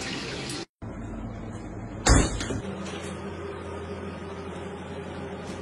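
A single loud thump about two seconds in, over a steady low hum.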